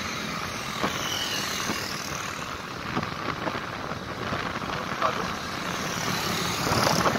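Steady rushing road and wind noise of a motorcycle on the move, rising a little near the end.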